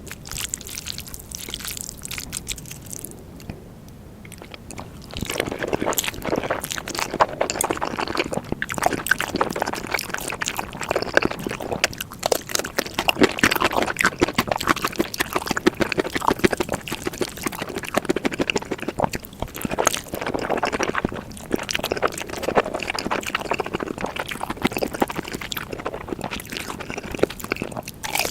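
Close-miked mukbang eating sounds: dense wet chewing and mouth clicks as food is eaten. Quieter for the first few seconds, then louder and busier from about five seconds in.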